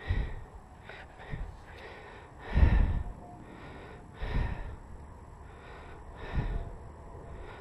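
Short puffs of breath close to the microphone, about five of them a second or two apart, the loudest about two and a half seconds in.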